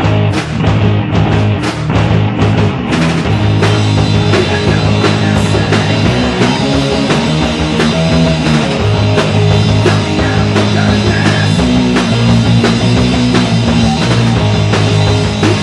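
A live heavy rock band playing loudly: electric guitar and electric bass over a drum kit, with repeated cymbal crashes and a dense wash of cymbals and guitar from about three seconds in.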